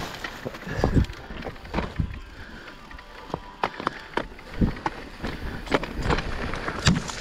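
Mountain bike clattering over rough trail: irregular sharp knocks and rattles over a low tyre rumble.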